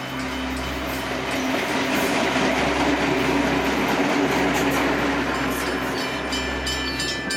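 Heritage steam train running by: a steady rushing noise with a low rumble that swells toward the middle. Repeated high ringing tones come in near the end.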